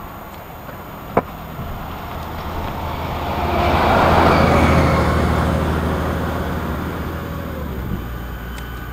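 A motor vehicle passing by: its engine and tyre noise swells to a peak about halfway through, then fades away. A single sharp click sounds about a second in.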